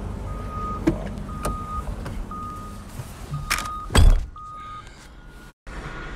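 An electronic beep, half a second long, repeats about once a second. About four seconds in, a pickup truck door slams shut with a heavy thump, and afterwards everything sounds muffled, as if heard from inside the closed cab.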